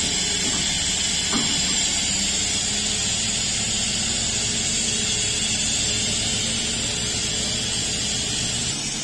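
Steady hiss of compressed air feeding through an air line into a large mining dump-truck tire as it is inflated, over the low steady hum of the tire-handler forklift's engine idling. A light knock about a second and a half in.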